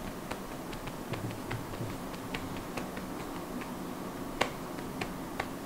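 Light, irregular small clicks and taps, a few a second, with one sharper click about three-quarters of the way through.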